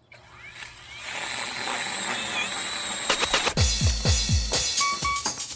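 Electronic dance music intro: a rising sweep builds over the first second into a steady synth layer, then deep bass hits drop in a quick run about three and a half seconds in.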